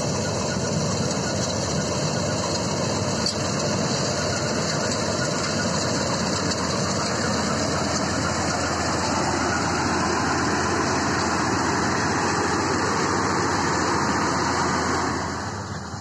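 Combine harvester running while cutting wheat: a steady, loud engine and machinery drone that drops noticeably quieter near the end.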